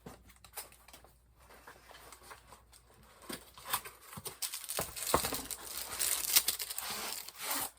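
Packaging around a set of ceiling fan blades being handled: crinkling and rustling with scattered clicks and knocks, quiet at first and louder from about three seconds in.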